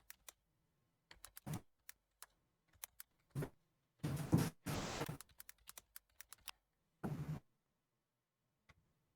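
Computer keyboard typing in irregular spurts of keystroke clicks, with a couple of brief louder hissy noises partway through, as a search is typed in.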